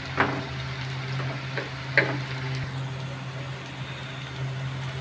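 Goat-brain pakoras sizzling as they deep-fry in hot oil, with a wooden spatula knocking lightly against the pan twice, once right at the start and again about two seconds in. A steady low hum runs underneath.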